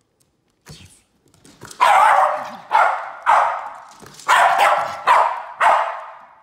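Jack Russell terrier barking in play: six sharp barks over about four seconds, each with a short echo after it.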